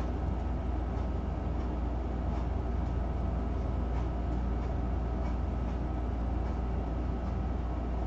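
Steady low machine hum and rumble, unchanging throughout, with a few faint scattered ticks over it.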